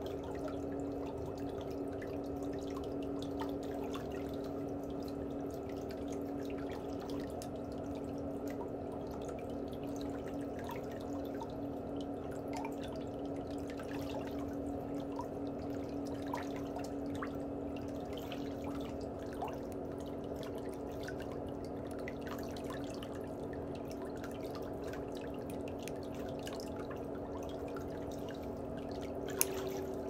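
Pedicure water trickling and dripping over a steady low hum, with faint scattered ticks of a fine metal tool scraping at the big toenail's edge. A single sharp click near the end, from the toenail nippers.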